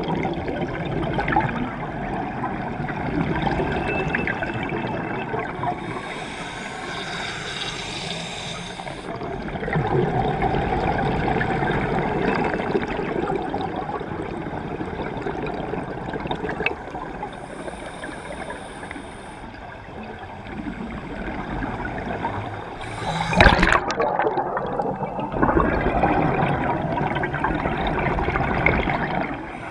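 Scuba divers' exhaled regulator bubbles gurgling and rushing past an underwater microphone, swelling and easing in spells several seconds long. A single sharp knock about three-quarters through.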